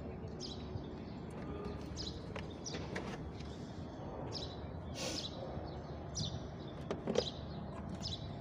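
A small bird chirping, short high chirps that fall in pitch, repeating roughly once a second. A few light clicks and taps from wiring connectors being handled against a plastic toy car body, with the loudest near the end.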